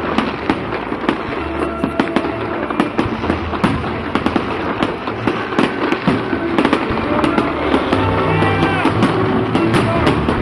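Fireworks bursting and crackling over a crowd, a dense run of sharp bangs and pops with hardly a gap. Music plays underneath, most evident near the end.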